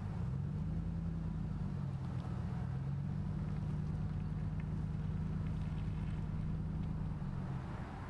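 A vehicle engine running steadily, a low even hum that holds one pitch.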